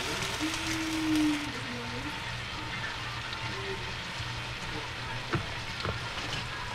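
Steady crackling sizzle from the stovetop while handfuls of chopped raw cabbage are dropped into an enamel pot. A brief hum sounds about a second in, and there is a light knock a little after five seconds.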